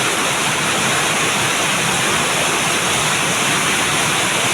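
Heavy rain pouring steadily: a loud, even rush with no breaks.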